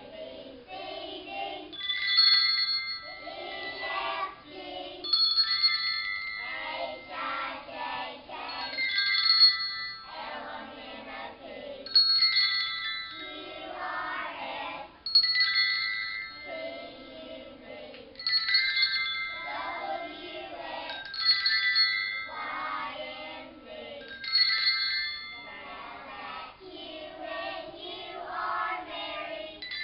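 Children singing a song while small handbells are rung, a bright bell chime starting about every three seconds over the voices.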